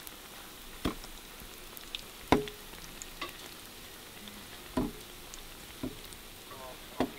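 Festival dumplings deep-frying in a pan of hot oil, a steady sizzle, broken by about five sharp clicks spread through it.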